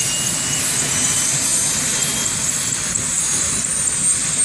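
Helicopter turbine engine running: a steady high-pitched whine over a continuous rumbling rush of noise.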